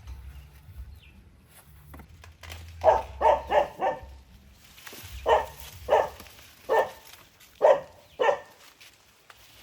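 A dog barking: a quick run of four barks about three seconds in, then five single barks spaced less than a second apart.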